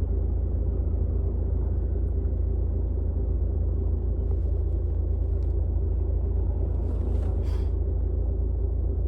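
Car engine idling while stationary, heard from inside the cabin as a steady low rumble with a faint hum.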